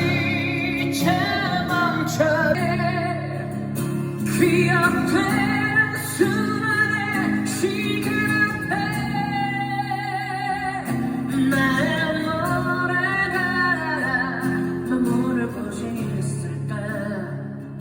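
A male vocalist singing a slow ballad live with orchestral backing and guitar. His held notes carry a wide vibrato.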